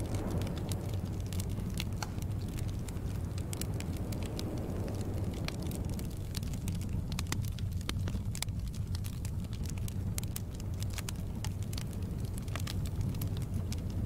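Wood fire crackling in a fireplace: scattered sharp snaps over a steady low rumble.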